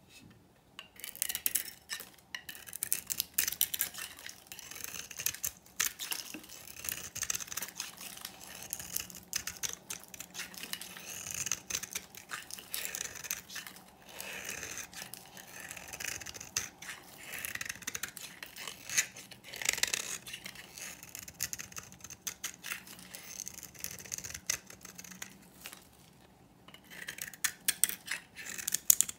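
Dry, hard bar soap with a green painted coating being shaved and carved with a snap-off utility knife blade: crisp crunching and crackling as flakes and chips break away, starting about a second in, with a short pause near the end.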